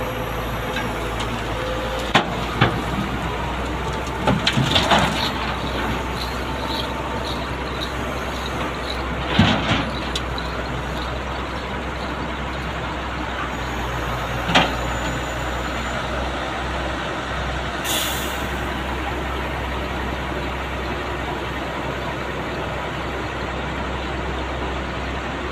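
Heavy diesel truck engine running steadily, with a few sharp knocks and clanks scattered through the first fifteen seconds and a short hiss of air about eighteen seconds in.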